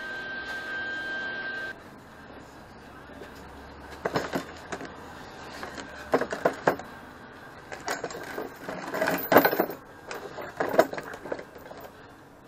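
Steel chain links clinking and wooden boards knocking on a plywood board as they are handled and set in place, in several short clatters. A steady high whine stops about two seconds in.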